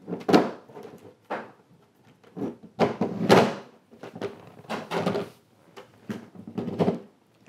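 A thin plastic Realistic portable cassette player being pushed, slid and knocked about on a wooden table top: a string of about ten scrapes and knocks, the longest two about a third of a second in and just past three seconds.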